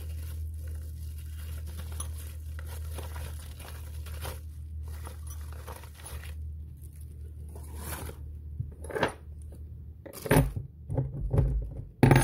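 Low steady hum with faint scattered clicks, then near the end a quick run of knocks and clatter as a long steel nail is picked up and handled on a wooden bench.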